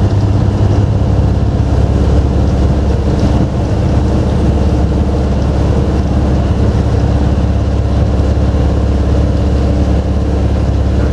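Vintage Leyland bus engine running steadily under way, heard from inside the bus as a low, even drone; the engine note drops slightly about a second in.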